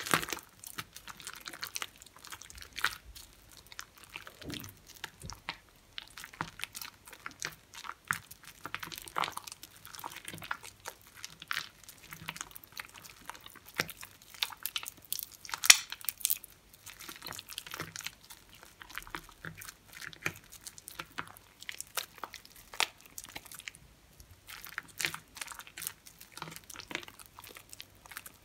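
Hands squeezing and kneading soaked mushy soap made from recycled soap scraps. The foamy soap mass makes wet squishing with dense, irregular crackling.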